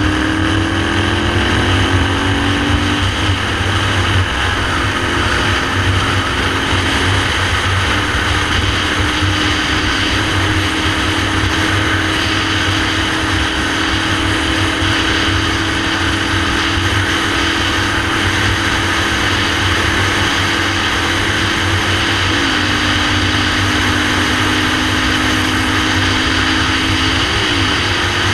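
Motorcycle engine running at road speed with heavy wind rush on the microphone. The engine note steps and glides with a few gear changes and throttle changes, including a quick blip near the end.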